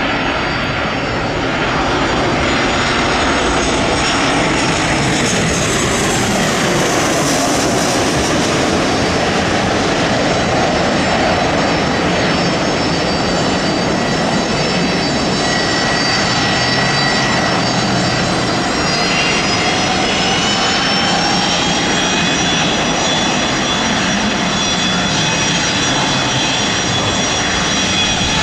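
Boeing 737-800 jetliner landing, its CFM56 turbofan engines giving a steady loud rush with high whining tones. The whine dips as the plane passes, and climbs in pitch again about two-thirds of the way through, after the wheels are on the runway.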